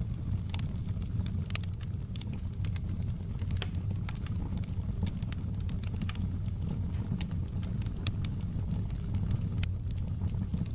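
Wood fire burning in a fireplace: a steady low roar with irregular sharp crackles and pops scattered throughout.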